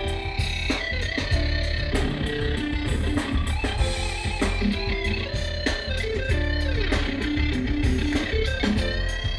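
Live band playing an instrumental passage with no vocals: guitar over bass and drums, with held and sliding notes.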